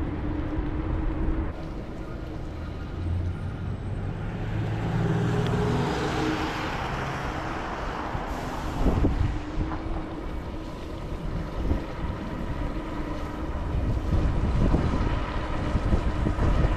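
Ninebot electric scooter ride: wind rushing over the microphone and the wheels rumbling on the path, with a faint steady motor whine. A louder rushing swell comes around the middle.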